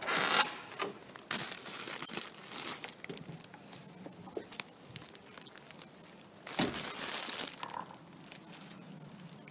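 Plastic packaging crinkling and rustling as it is handled, in three bouts with quieter gaps between.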